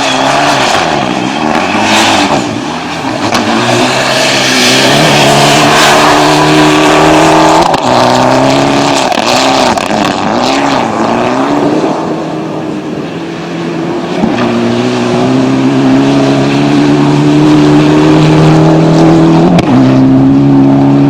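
Engine of a Paraguayan-built prototype rally car running hard, its revs climbing through each gear and dropping sharply at the shifts, with the revs rising and falling quickly in between.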